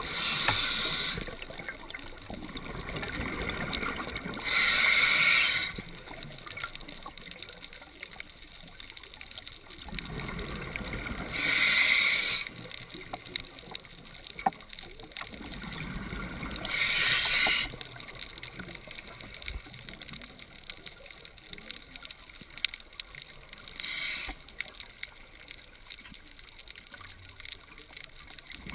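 Scuba diver breathing through a regulator underwater: exhaled bubbles rush out in bursts about every six seconds, five times, with quieter inhalation hiss between them.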